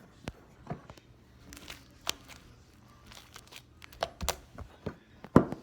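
Homemade slime being handled, with irregular squelchy clicks and pops as it is squeezed and pulled; the loudest pop comes near the end.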